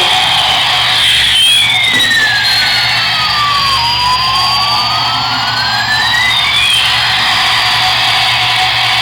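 Toy airplane's electronic jet-engine sound effect playing through its small speaker: a steady hiss with tones that glide down and back up over several seconds.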